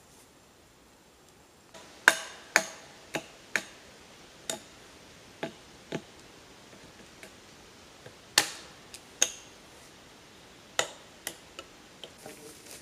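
A hand tool striking a wooden log post: about a dozen sharp knocks at uneven intervals, starting about two seconds in.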